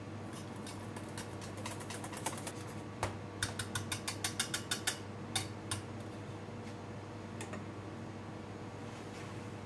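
Wire whisk whipping cream in a stainless steel bowl: the wires click against the metal, in a quick regular run of about seven clicks a second near the middle, then stop. A steady low hum runs underneath.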